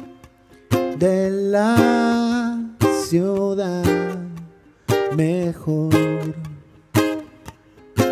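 A small ukulele-type acoustic instrument is strummed in short, sharply stopped chords with gaps between them. A man's voice sings long held notes over the strums in the middle of the passage.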